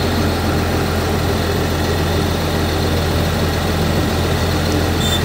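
Heavy machine's engine running steadily with a deep, even hum, heard from inside its cab.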